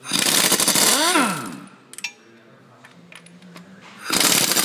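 Air impact wrench hammering loose the 18 mm nuts on an engine mount's studs: two rattling bursts. The first ends about a second and a half in with a whine that rises and falls as the tool spins free, and the second starts near the end.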